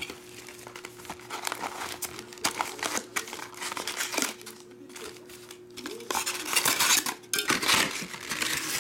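Foil trading-card packs and plastic wrapping crinkling and rustling as the packs are pulled out of a cardboard box and handled, with the densest crackling near the end.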